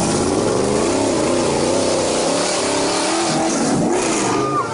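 A vehicle engine revving hard, its pitch rising and falling repeatedly, over a steady hiss of noise.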